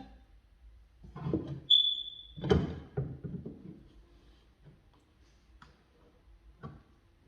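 A few knocks and clatters of hand tools and materials being handled, with a short high ring that fades out about two seconds in, followed by lighter clicks.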